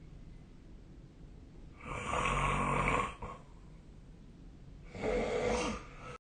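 A sleeping person snoring: two loud snores about three seconds apart, the first longer and louder than the second.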